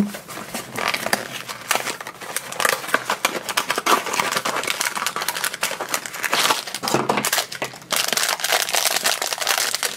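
A small cardboard blind box being opened by hand, then the foil bag inside rustling and crinkling as it is handled.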